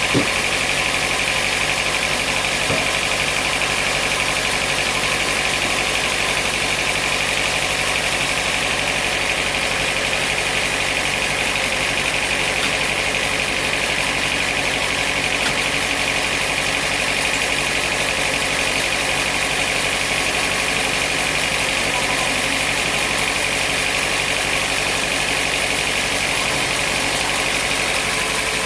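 Sawmill machinery running steadily: an even mechanical drone with a steady high whine, without breaks or separate strokes.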